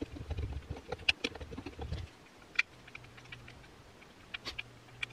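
Screwdriver driving a Torx 15 screw into a reciprocating saw's housing: a quick run of small clicks and ticks for about two seconds, then a few scattered clicks.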